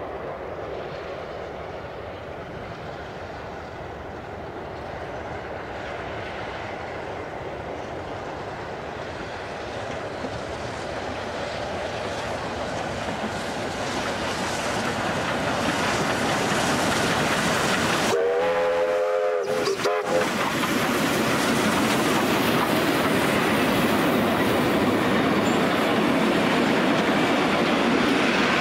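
Victorian Railways K class steam locomotives double-heading a passenger train, growing steadily louder as they approach. A single steam whistle blast of about two seconds sounds just past the middle, then the carriages roll past with a steady wheel-on-rail clatter.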